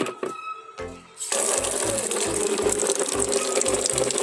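A few light knocks, then about a second in a tap opens and water runs hard and steadily into a plastic bucket. A low, regular beat runs beneath it, about three thumps a second.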